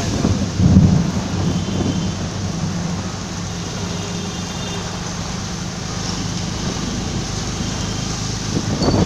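Heard from inside a moving bus: the engine hums steadily under a constant wash of rain and wet-road noise, with a louder low rumble about a second in.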